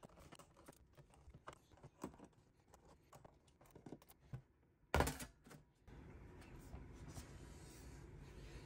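Faint scattered clicks and light scrapes of a small screwdriver and screws as the bottom cover of a 17-inch MacBook Pro is unscrewed. There is a sharper clack about five seconds in, and a steady faint hiss sets in soon after.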